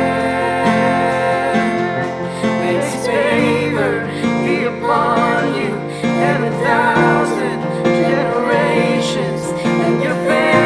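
Acoustic guitar and keyboard playing a slow worship song, sustained chords under a wavering melody line.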